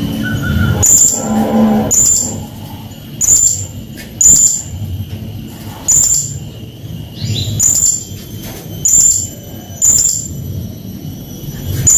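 Serindit (blue-crowned hanging parrot) giving short, shrill, very high-pitched calls over and over, about one a second.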